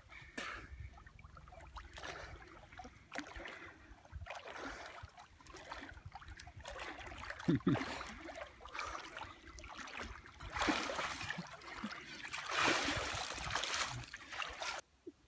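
Pond water splashing and sloshing as a person swims breaststroke-like through it. The splashing grows louder as he reaches the bank and climbs out, then breaks off suddenly near the end.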